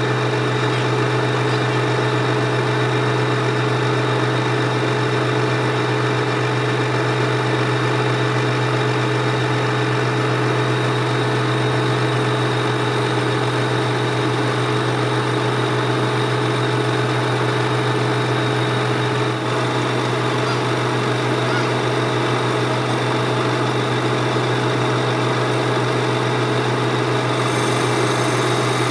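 Workshop machinery running with a steady low hum and constant pitch. A faint high hiss joins near the end.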